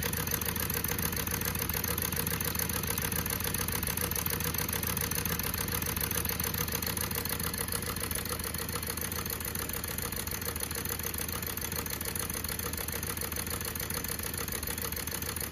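Model steam engine running steadily, turning a Stuart D10 gearbox and a No. 1 centrifugal pump, with an even mechanical running sound. Water from the pump's hose pours into a bucket.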